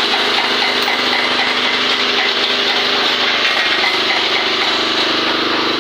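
Volvo 210D excavator's diesel engine running steadily.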